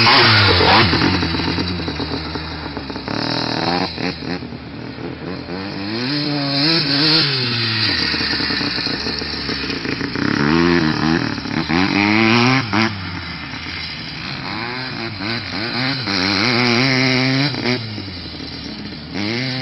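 Hercules Wankel 502 GS dirt bike's air-cooled single-rotor Wankel engine being ridden hard, its pitch rising and falling again and again as it revs up and drops back through the gears. It is loudest at the start as the bike passes close, then quieter as it goes farther off around the track.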